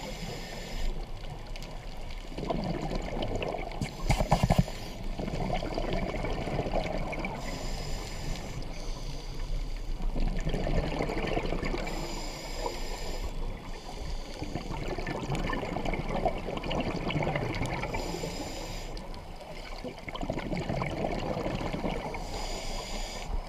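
Scuba regulator breathing underwater. A short hissing inhale comes about every four to five seconds, six in all, and each is followed by a few seconds of bubbling exhaust.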